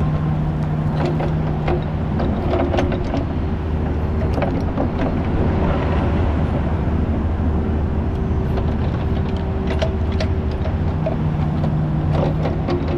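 Kubota U55 mini excavator's diesel engine running steadily, with scattered clanks and knocks over the engine hum.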